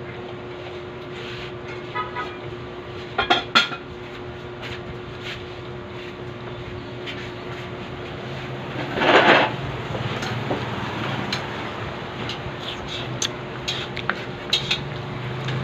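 Spoon and fork clinking against a plate and bowl while eating: scattered sharp clinks, a longer rustling burst about nine seconds in, and a steady low hum underneath.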